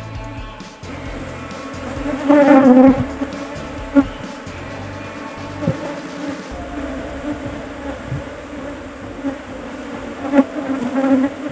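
A clustered colony of Asian honey bees (Apis cerana) buzzing in a steady hum, swelling louder about two seconds in and again near the end.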